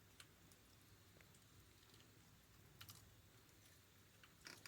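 Near silence with a few faint, sharp clicks, a cluster of them near the end.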